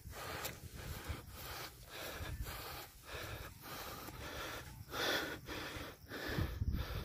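A person panting hard close to the phone's microphone, with quick breaths about every half to two-thirds of a second: out of breath.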